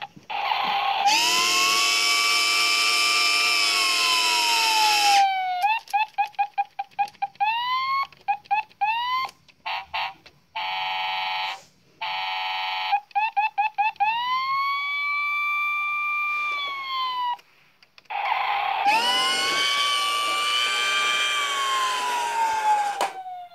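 Toy fire truck's electronic siren and horn sound effects, set off by pressing the buttons on its side. There are several siren wails that rise, hold and then slide down, runs of quick rising yelp chirps, and harsh horn-like blasts, each starting and stopping abruptly.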